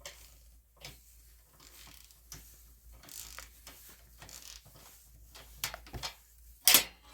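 A 90-tooth 3/8-inch drive flex-head ratchet with a 13 mm socket loosening a bolt, clicking in short irregular runs of fine, closely spaced clicks on the back strokes. There are a couple of louder, sharp clacks near the end.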